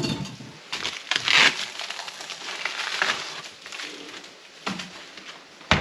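Foil and plastic food packaging crinkling and rustling as it is handled, in irregular bursts, with a sharp knock near the end.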